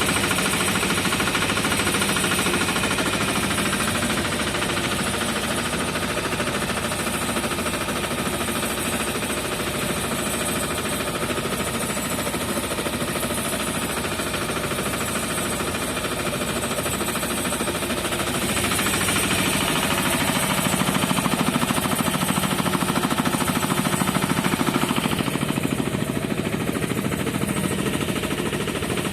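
An engine running steadily with a rapid, even knocking pulse.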